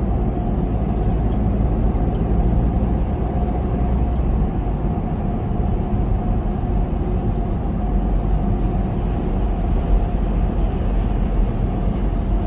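Car driving on city streets: steady low rumble of road and engine noise, with a faint steady hum through it.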